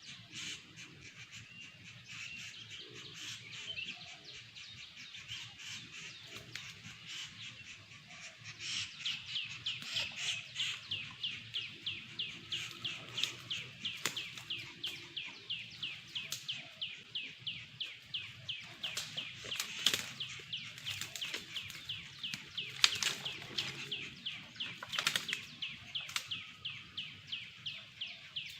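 Murai papua bird calling: a high chattering that turns, about a third of the way in, into a rapid, steady run of short down-sweeping notes, several a second. A few sharp clicks stand out near the end.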